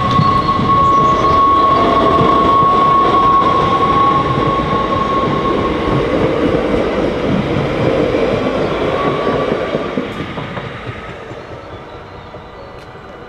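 NS Sprinter electric multiple unit passing over a level crossing: loud rumble of wheels on the rails, with a steady high whine over the first half. The sound dies away after about ten seconds as the train clears.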